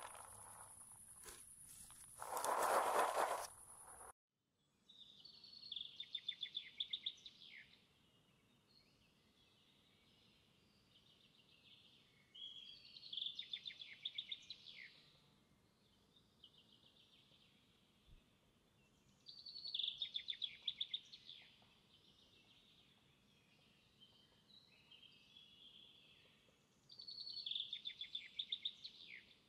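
Small round firework stars rattling as they are poured from a container onto a tray, over a steady high-pitched insect drone. Then a songbird sings a short trilled phrase four times, about every seven seconds.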